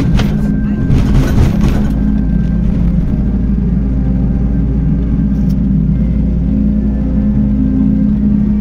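Engine of a moving motor vehicle humming steadily at cruising speed, with road and wind noise. A louder rush of noise passes in the first two seconds.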